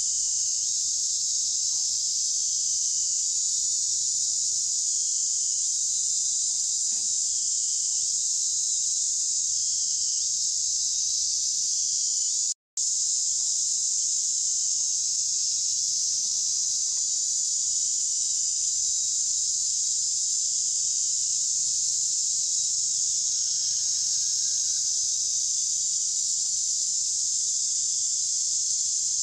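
A steady, high-pitched chorus of insects buzzing without a break, cutting out for a moment about halfway through.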